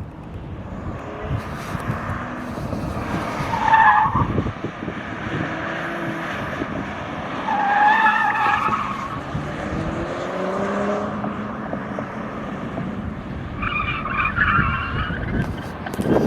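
A Porsche's tyres squealing hard through autocross corners, three times, with a steady rush of wind and road noise and a rising whine from the car as it accelerates between the turns.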